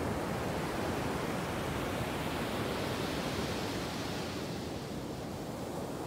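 Ocean surf breaking and washing up the beach: a steady rushing wash that brightens around the middle, then eases off.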